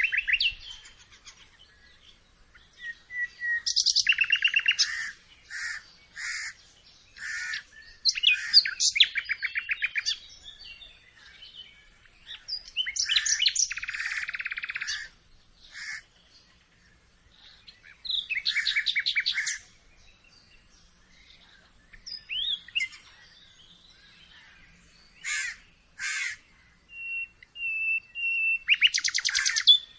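Birds chirping and singing in separate phrases of a second or two with pauses between, several of them fast trills, plus short single chirps and a few clear whistled notes near the end.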